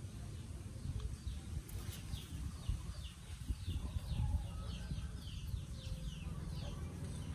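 A bird calling in a quick series of short, falling notes, about three a second, starting about two seconds in, over a low rumble.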